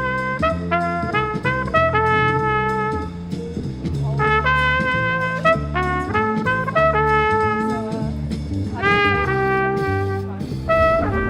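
Trumpet playing a jazzy melody of short and held notes, one note scooping up in pitch about nine seconds in, over a low accompaniment.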